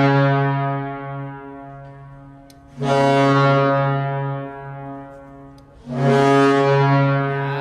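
St. Louis Blues goal horn sounding in repeated deep blasts. One blast is already ringing at the start, and new ones come in abruptly about three and six seconds in, each fading out slowly.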